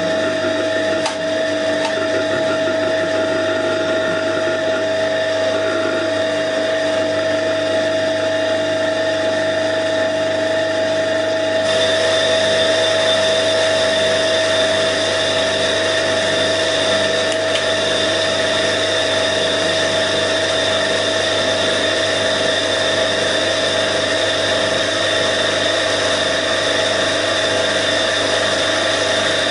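Vacuum pump running steadily, a constant hum with a steady whine. About twelve seconds in the sound shifts abruptly and becomes brighter.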